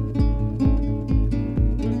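Background music: plucked strings over a steady low beat of about two beats a second.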